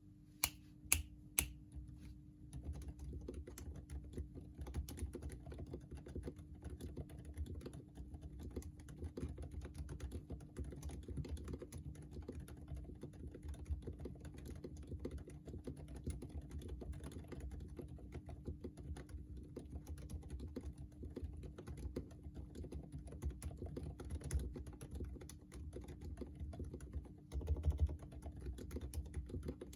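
Continuous typing on a Quefrency Rev. 2 keyboard with lubed Kailh Box Silent Pink silent switches: a dense, muffled patter of keystrokes. There are three sharper clicks in the first second and a half, and a louder stretch near the end.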